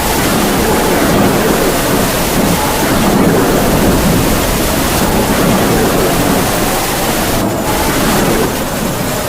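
Heavy rain falling steadily with gusts of howling wind, the wind swelling through most of the stretch and easing slightly near the end.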